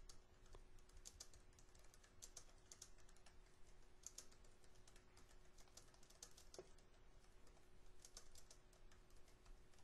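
Faint typing on a computer keyboard: an irregular run of quick keystrokes, with a faint steady hum underneath.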